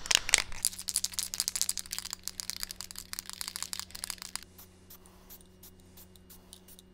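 Aerosol spray can of primer being shaken, the mixing ball inside rattling rapidly for about four and a half seconds before stopping.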